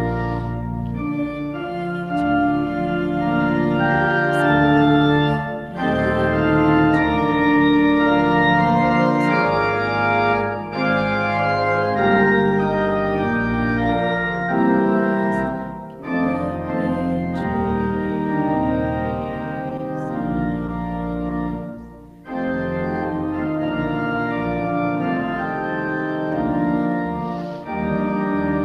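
Organ playing slow, sustained chords in phrases, with a brief break between phrases every five or six seconds.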